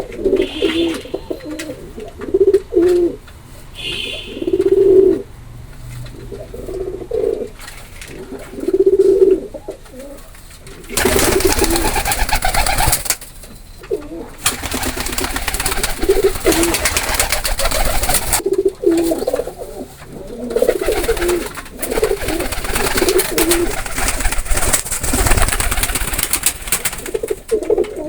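Domestic pigeons cooing, repeated low coos one after another. From about eleven seconds in, a loud rustling noise covers much of the cooing, easing off near the end.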